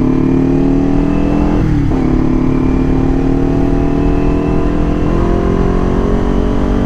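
Motorcycle engine pulling under acceleration, its pitch climbing steadily; about two seconds in it drops briefly at a gear change, then climbs again.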